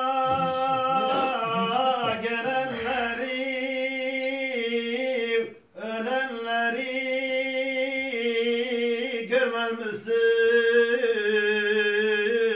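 A man singing a slow Turkish ilahi (religious hymn) unaccompanied, holding long drawn-out notes with wavering ornaments. The voice breaks off briefly about five and a half seconds in.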